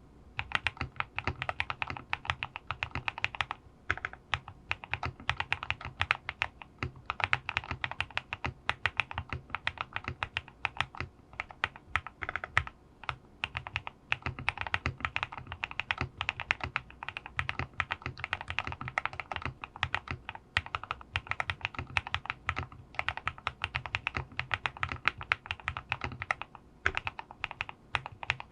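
Continuous fast typing on a QK65 custom mechanical keyboard with lubed linear switches (Oil King housings with NK Cream stems) in an aluminum plate: a steady stream of rapid keystroke clacks, with a few brief pauses.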